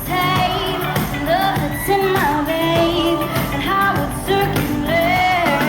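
Live pop music: female vocalists singing a melody over an amplified band with a steady beat and bass.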